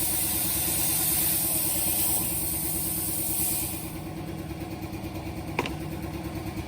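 CNC plasma cutter hissing as it cuts thin steel plate, the hiss stopping suddenly about four seconds in. A steady machine hum runs underneath, with a single sharp click near the end.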